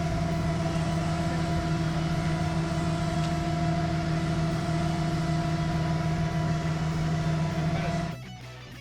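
A large engine running steadily at constant speed, a level hum with a fixed pitch; it cuts off abruptly about eight seconds in.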